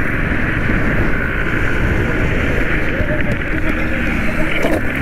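Steady wind rush over the camera microphone, with a motorcycle engine running while riding along a road.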